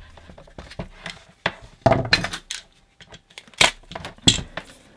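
Hand tools and a thin steel case being handled on a workbench: a run of sharp metallic clanks and knocks, loudest about two seconds in and again near four seconds.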